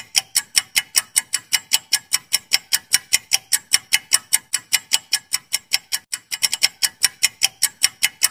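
Clock-ticking sound effect for a quiz countdown timer: sharp, evenly spaced ticks at about four a second, with a few bunched closer together about six seconds in.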